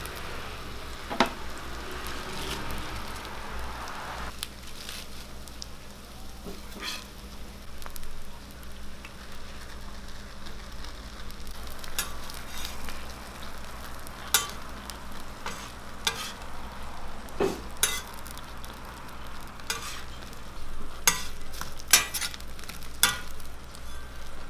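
Food sizzling on a hot flat-top griddle, with sharp clicks and scrapes of a metal spatula against the griddle plate as fried eggs are lifted onto burgers. The clicks come irregularly and grow more frequent near the end.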